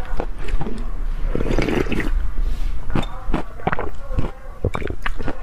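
A person slurping soup broth from a large bowl held to the mouth, a long wet slurp about a second in, with sharp wet mouth clicks and smacks around it.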